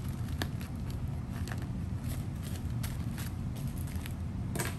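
Bubble wrap and a plastic bubble mailer being handled, scattered soft rustles and small clicks as a wrapped item is slid into the mailer, with a sharper click near the end. A steady low hum runs underneath.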